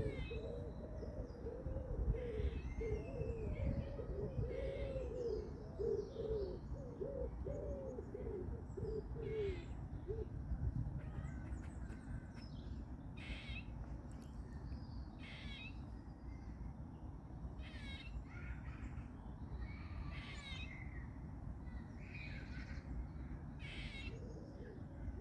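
Squirrels calling: a quick run of short, arching low calls over roughly the first ten seconds, then they stop. Small birds chirp throughout over a low wind rumble.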